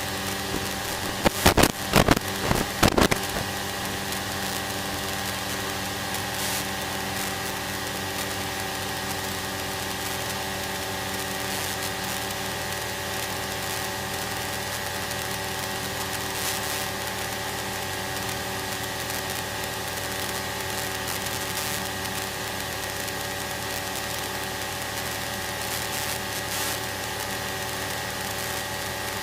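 Light aircraft's piston engine and propeller droning steadily in cruise, heard inside the cabin. A few sharp crackling clicks in the first three seconds.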